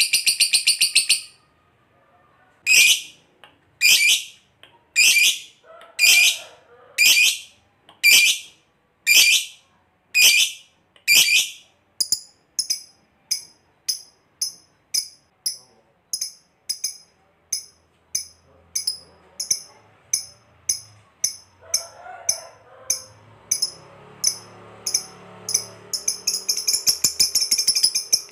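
Lovebird calling: a rapid chattering trill (the 'ngekek') at the very start, then a run of loud, sharp chirps about one a second that quicken to about two a second and grow fainter midway, breaking into another long rapid chattering trill near the end.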